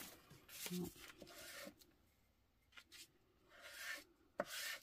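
Paintbrush dragging acrylic paint across paper: several soft, scratchy brush strokes with short pauses between them, and a sharp click near the end.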